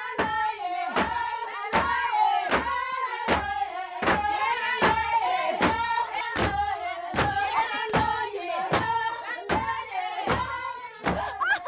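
Women singing together to a steady beat of wooden beaters pounding packed earth, a thud about every three-quarters of a second.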